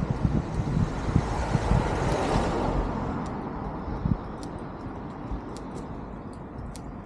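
A car passing on the road, its tyre and engine noise swelling to a peak about two seconds in and then fading. There are low thumps in the first few seconds and faint ticks near the end.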